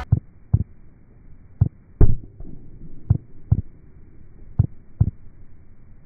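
Heartbeat sound effect: four muffled double thumps, each pair about one and a half seconds after the last.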